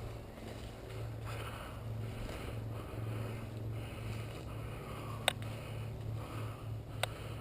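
A person breathing hard close to the microphone in soft, recurring swells over a steady low hum, with two short sharp clicks about five and seven seconds in.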